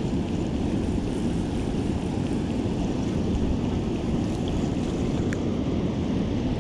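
Steady rushing outdoor noise of wind on the microphone and moving river water, even throughout with no distinct events.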